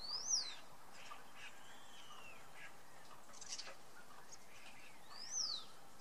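Starlings calling: two loud whistles that rise then fall, one right at the start and another about five seconds later, with a softer downward-curving whistle around two seconds in and scattered short chirps.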